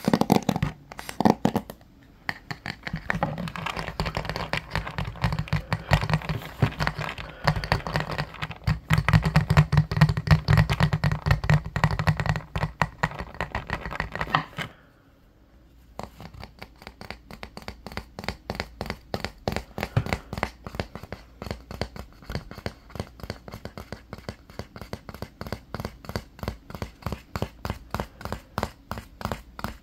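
Fingernails rapidly tapping and scratching on a wooden paddle hairbrush, close to the microphone. The sound stops briefly about halfway through, then picks up again as lighter, quicker clicks.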